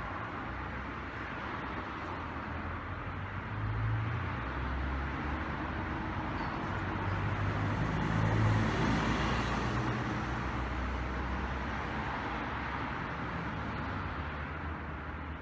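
Road traffic: a passing vehicle's rumble grows louder to a peak about halfway through, then slowly fades.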